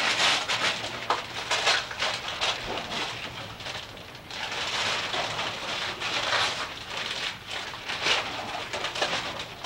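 Wrapping paper rustling and tearing in uneven bursts of crackle as gifts are unwrapped.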